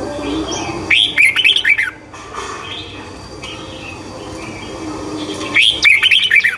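A songbird singing two short phrases of quick, falling notes, about four and a half seconds apart, over a steady low hum.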